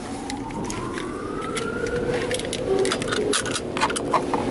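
Automatic car wash air dryer blowers spinning up, a whine rising in pitch over the first two seconds, then running with a steady tone and scattered sharp ticks.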